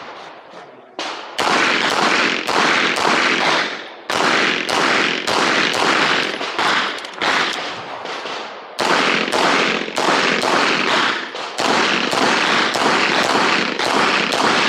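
A string of pistol shots fired rapidly, about two to three a second, each crack trailing a short echo, with a brief pause a little past the middle before the shots resume.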